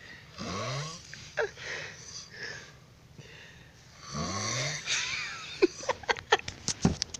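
A person snoring: two long snores about four seconds apart, each rising in pitch as it starts. Near the end comes a quick run of sharp clicks.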